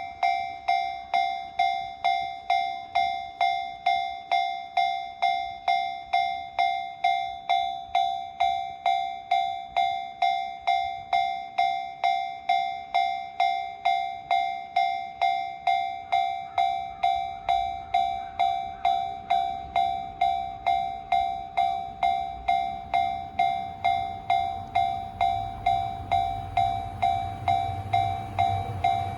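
Japanese railway level-crossing warning bell ringing with an even clang-clang of about two strikes a second. In the last third a low train rumble grows underneath as a train approaches.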